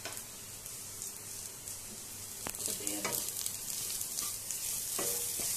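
Onions, green chillies and dry ground spices sizzling in oil in a non-stick kadhai, with a spatula scraping through them and a few sharp taps against the pan as the masala is stirred in and briefly roasted.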